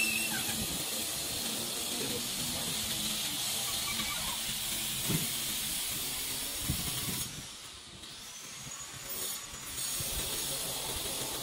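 Steady hiss with a few short scrapes and knocks as a mason's trowel works a sand bed.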